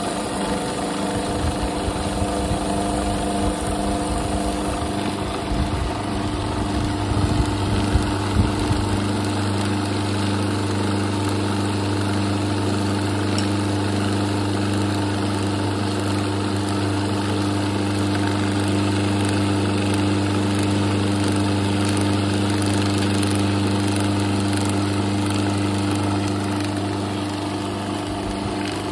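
Electric mixie (mixer grinder) motor running continuously, grinding roasted sesame seeds and jaggery into a coarse, sticky paste. For about the first nine seconds the contents rattle and churn unevenly, then the motor settles into a smoother, steady hum as the mix turns to paste.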